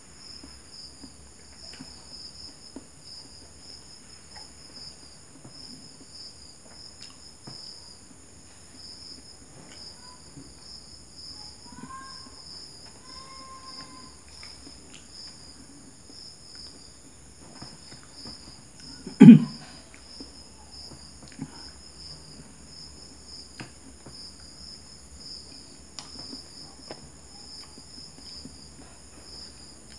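Crickets chirring steadily in several high-pitched bands, the lowest one pulsing, with faint chewing noises of a man eating a hot dog close to the microphone. About two-thirds of the way through, one brief loud vocal sound stands out.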